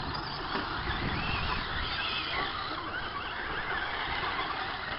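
Radio-controlled short-course racing trucks driving on a dirt track, their motors rising and falling in pitch over a steady rushing noise.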